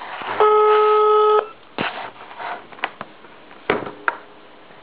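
German telephone ringback tone: one steady one-second beep near the start, the line ringing at the called end, heard over a phone line. A few short clicks follow.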